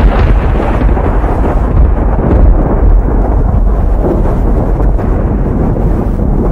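Loud, deep thunder-like rumble of a logo-reveal sound effect. The hiss above it thins out over the first couple of seconds while the low rumble carries on.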